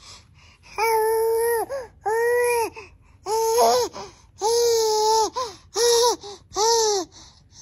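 Baby squealing with delight: a run of about seven high, breathy squeals, each arching up and down in pitch.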